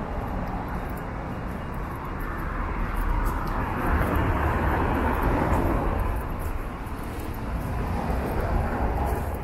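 Cars driving past on a cobblestone street, their tyre noise swelling as one passes close a few seconds in and again near the end.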